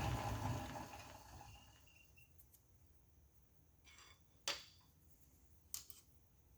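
Metal lathe spindle coasting down, its low hum fading out over the first two seconds, followed by three short light clicks.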